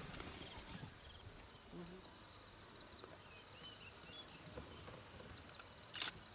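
Quiet bush ambience: a high chirping repeats about twice a second, with a brief low call about two seconds in and a sharp click near the end.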